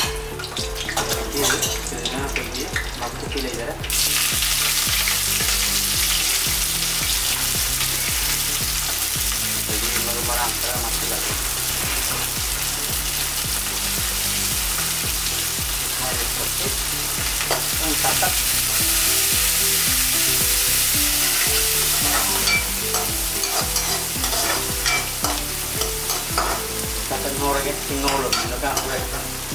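Hot oil sizzling hard in a nonstick kadai as seeds and chopped green vegetables fry, with a spatula stirring and scraping. The sizzle jumps much louder about four seconds in, grows louder still later on, then eases back for the last several seconds.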